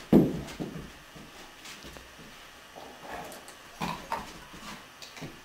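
A Doberman running on carpet after a thrown toy: a few soft paw thuds and short thumps, the loudest right at the start and a small cluster about four seconds in.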